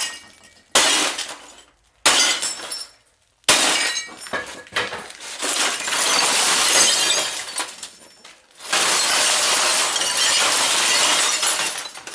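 Axe blows breaking up an old RCA CRT television: three sharp strikes in the first few seconds, then long stretches of crunching and clinking broken glass.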